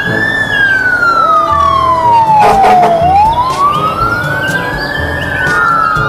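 Fire truck siren wailing, its pitch sliding slowly up and down twice.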